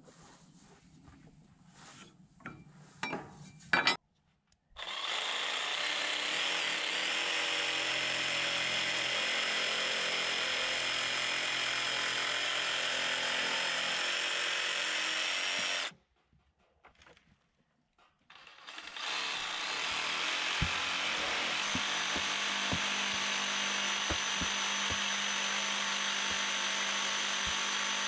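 Cordless jigsaw cutting Hardie fiber-cement trim board in two long runs: the first starts about five seconds in and lasts some eleven seconds, and the second starts after a pause of about three seconds and keeps going. Before the first cut there are a few light clicks of boards being handled.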